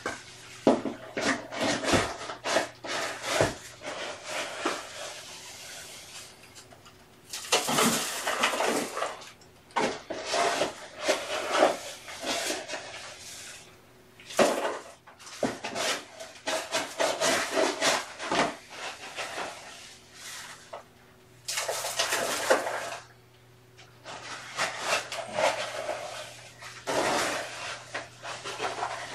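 Cat litter being scooped and sifted in a litter box: irregular bursts of gritty scraping and rattling, mixed with sharp clicks of the plastic scoop knocking against the box.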